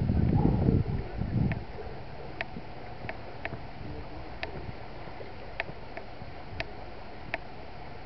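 Wind buffeting the microphone for the first second and a half, then a steady hiss of wind over the water. Short, sharp calls from the flock of waterbirds on the lake come through it every second or so.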